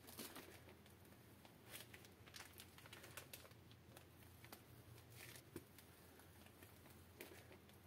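Near silence: faint crinkling and a few soft clicks from a disposable plastic piping bag squeezed by hand as batter is piped out, over a faint low hum.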